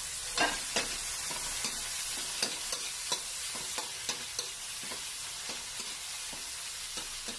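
Onion, tomato, ginger and garlic sizzling in hot oil in a metal wok: the aromatics being sautéed. A metal spatula scrapes and taps against the pan at irregular intervals, about one or two clicks a second.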